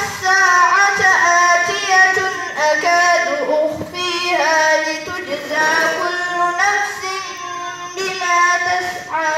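Melodic Quran recitation (tilawa) in a high voice, amplified through a microphone: long, drawn-out phrases with gliding ornaments, broken by short pauses about four and eight seconds in.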